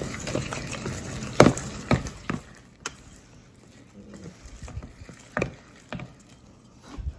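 Wire whisk stirring thick brownie batter in a stainless steel bowl: wet stirring with irregular clinks of the wires against the metal, louder in the first couple of seconds and quieter after.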